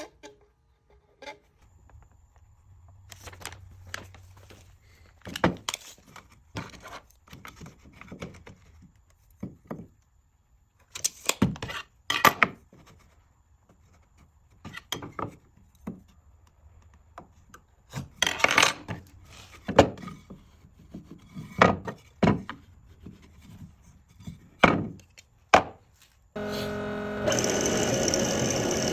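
Hand woodworking on wooden parts: scattered knocks, taps and scraping of wood against wood and tools. Near the end a power tool starts and runs steadily.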